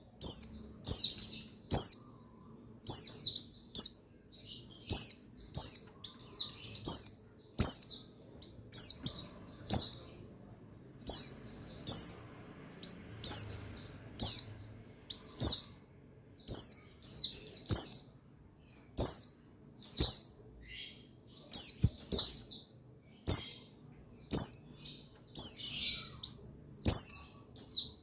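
Buxtoni white-eye (pleci buxtoni) calling in quick clusters of short, high, falling chirps, about one cluster a second. Sharp clicks come between the clusters.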